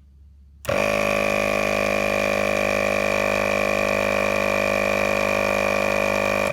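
ARB single-motor air compressor starting about a second in and running steadily at full load, then cutting off abruptly near the end. It is pumping a tyre up for a timed fill toward a 33 psi target set on a digital inflator module.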